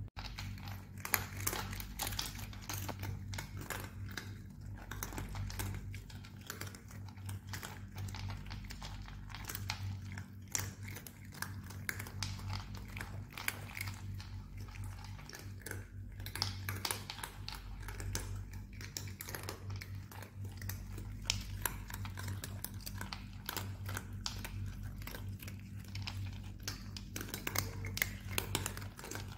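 Several cats crunching dry dental-care kibble, a dense, irregular run of small crunches and clicks, over a steady low hum.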